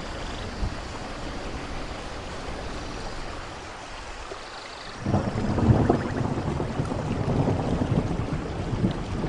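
Steady rain falling, with a roll of thunder that starts suddenly about five seconds in and keeps rumbling.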